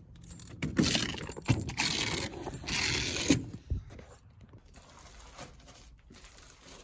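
Rolls of fiberglass insulation being unloaded and handled: scraping and rustling for about three seconds, with a few knocks, then it goes quieter.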